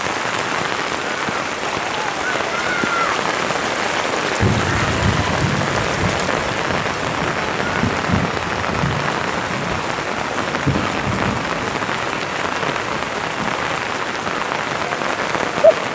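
Steady rain hiss, with uneven low rumbles from about four seconds in until about eleven seconds.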